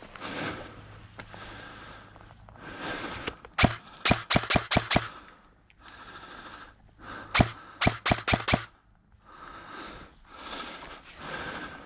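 Airsoft gun firing two quick strings of sharp shots on semi-auto, about five or six each at roughly four to five shots a second: one about four seconds in and another about seven and a half seconds in.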